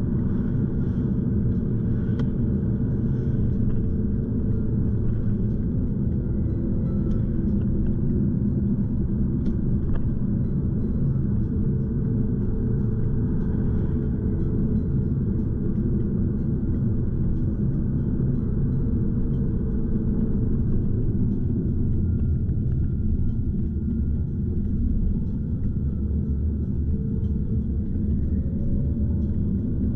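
Steady low rumble of a car driving, engine and tyre noise heard from inside the cabin, with a faint engine hum.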